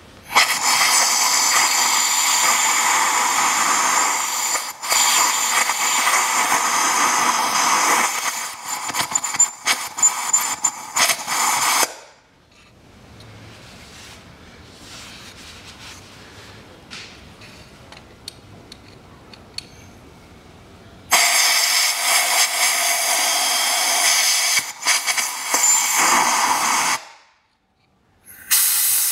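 Compressed-air blow gun hissing as it blows dirt out of the diesel engine's injector wells. There is a long blast of about twelve seconds that turns uneven toward its end, a pause, a second blast of about six seconds, and a short puff near the end.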